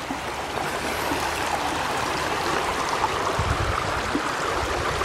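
Muddy floodwater rushing through a rocky wadi channel and over limestone ledges: a steady rushing and gurgling of a river in spate, with a short low rumble about three and a half seconds in.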